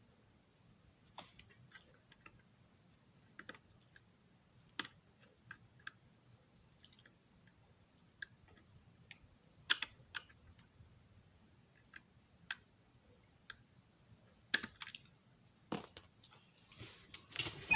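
Light, scattered clicks and taps of small tools and parts being handled on a model railroad passenger car, with a denser cluster of clicks and rustling near the end.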